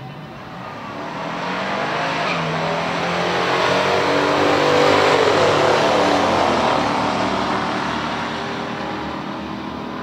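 Big-block V8 muscle car running hard down a drag strip, its engine revving up as it comes past, loudest about five seconds in, then fading as it goes away down the track.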